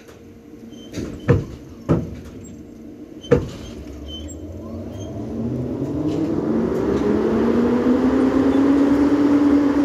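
Line contactors of an EP07 electric locomotive closing with four loud clacks in the first few seconds. Then a hum rises in pitch and grows louder as the locomotive starts to creep forward.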